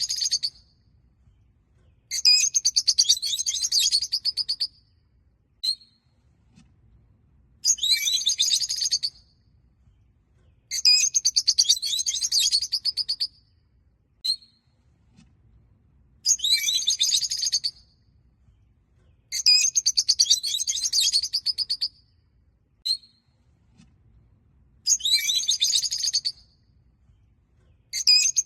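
Rosy-faced (peach-faced) lovebirds chattering in high-pitched bursts of rapid chirps. Each burst lasts about two seconds and comes every three seconds or so, with a single short chirp between some of them.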